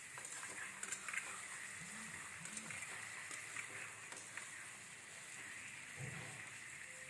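Sliced capsicum and onion sizzling steadily in hot oil in a metal kadhai, with a few light scrapes and taps of a metal spatula as the vegetables are stirred.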